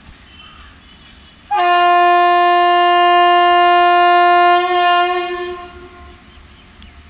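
WAP-7 electric locomotive's horn sounding one long, steady blast. It starts sharply about a second and a half in, holds for about three seconds, then tails off.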